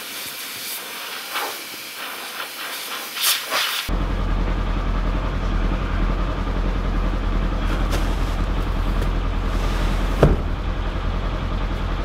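Garden hose spraying water onto a snow-covered UTV, a steady hiss. About four seconds in it cuts to the steady low drone of the Polaris Ranger 900 UTV idling, with a single thump about ten seconds in.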